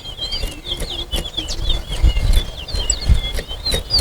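Towa-towa finches (chestnut-bellied seed finches) singing, a dense run of quick, high chirps and warbled notes, as two birds are matched in a song-count contest. A low uneven rumble lies underneath.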